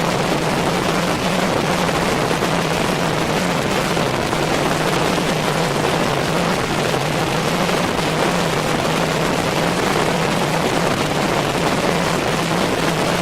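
Steady rushing noise of a car under way, with a constant low hum and no separate knocks or bangs.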